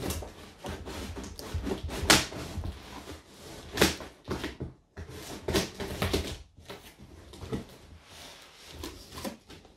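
Scissors slicing through packing tape along the seam of a cardboard box: irregular scraping snips, with sharper clicks about two and four seconds in.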